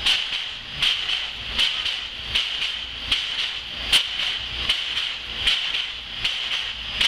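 Standing steam locomotives hissing steam, the hiss swelling in a sharp pulse with a light knock about every three-quarters of a second.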